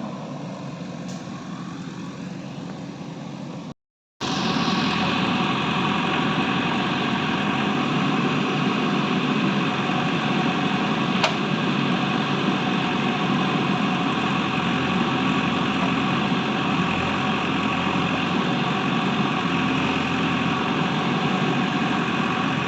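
A steady engine running at idle, with many even tones and no change in pitch. It breaks off at a cut about four seconds in and comes back louder. One sharp click sounds near the middle.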